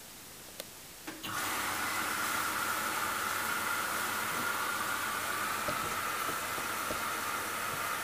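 Hoover Dynamic Next DXCC69IB3 washing machine starting its wash cycle: a couple of faint clicks, then about a second in a steady hiss of water rushing in as the machine begins to fill.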